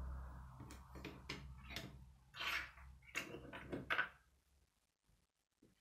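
Plastic K'nex rods and connectors clicking and knocking as they are handled and snapped together, about eight sharp clicks over four seconds, the last as the built piece is set down on the wooden table. A steady low hum underneath fades out about four and a half seconds in.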